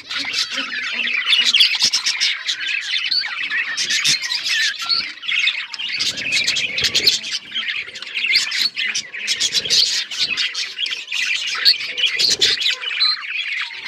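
A flock of budgerigars chattering continuously, many overlapping chirps and squawky calls at once.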